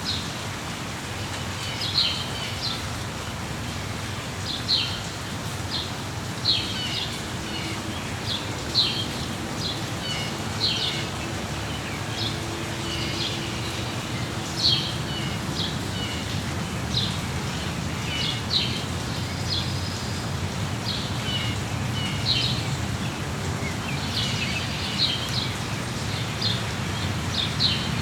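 Small birds chirping in short, sharp, high calls every second or two over the steady hiss of falling rain.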